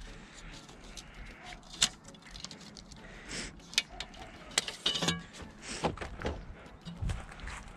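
Scattered clinks, knocks and rattles of junk and debris being pulled out and handled, with a brief burst of rattling about five seconds in.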